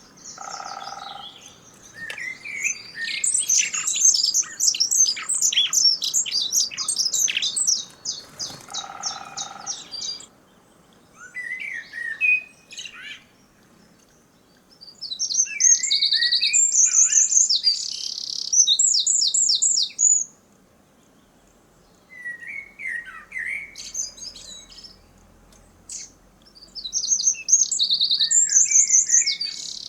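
Songbirds singing loud and close, in three long bursts of rapid repeated high notes with shorter calls between them. A woodpecker's drumming is buried under the song, hard to pick out.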